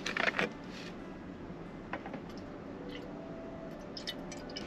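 Thin plastic water bottle crackling and clicking as it is handled and opened, in short bursts near the start and again near the end.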